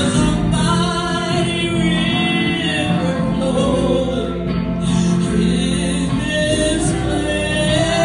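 Live gospel song: a woman singing into a microphone, accompanied by electric guitar.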